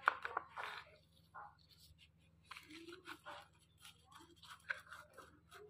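Hands fitting the rolling cloth onto a cigarette-rolling machine's frame: scattered rustles, scrapes and small clicks as the sheet is handled, the sharpest just at the start, over a faint steady low hum.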